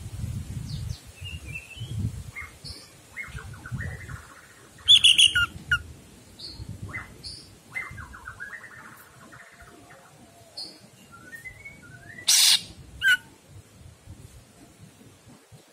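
Caged green leafbird (cucak ijo) singing: a varied run of chirps, short trills and whistled notes, broken by a loud, harsh note about five seconds in and two more near the end.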